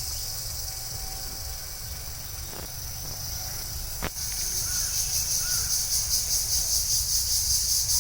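A chorus of insects buzzing high and steady. About halfway through it begins to pulse evenly, a few times a second, and grows louder. A bird gives two short chirps in the middle.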